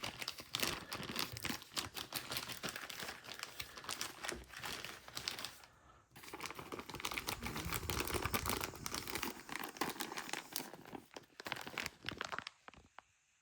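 Thin plastic bag crinkling and crackling as a folding knife is worked open inside it. There is a short pause about six seconds in, and it thins to a few clicks near the end.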